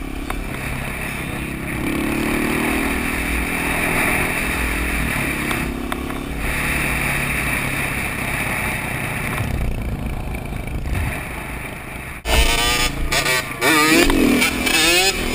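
Dirt bike engines running at riding speed under a steady rush of wind noise, the pitch rising and falling with the throttle. About twelve seconds in there is an abrupt cut to louder, close engines revving up and down in quick, repeated rises as a rider wheelies alongside.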